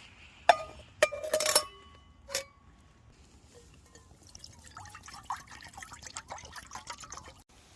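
Several sharp metallic clinks with a ringing tone in the first couple of seconds, then water bubbling hard in a camp pot at a rolling boil, a dense fast crackle for about three seconds.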